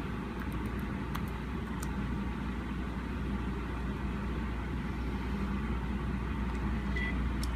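Laptop keys clicking several times in the first two seconds as a short password is typed, over a steady low hum. A brief high beep sounds near the end.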